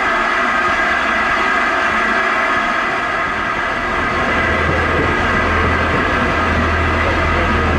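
Steady hiss of escaping steam from a standing LMS Black Five steam locomotive, with a low hum joining about four seconds in.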